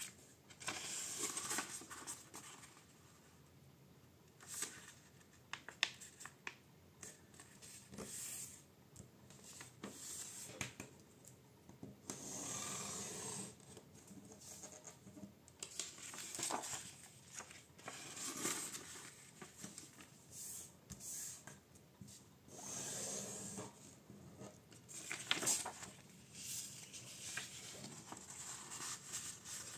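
A sheet of printer paper being folded by hand: rustling and sliding as it is lifted and laid over, with fingers pressing creases flat. It comes in repeated bursts of a second or two, with a few sharp snaps between them.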